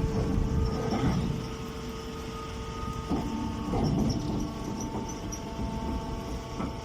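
Baling machine running: a steady mechanical hum with a few knocks, its tone shifting about three seconds in.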